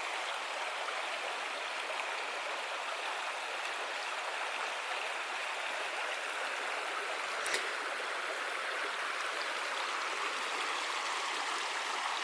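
A mountain creek flowing over rocks: a steady rush of running water, with one faint tap about seven and a half seconds in.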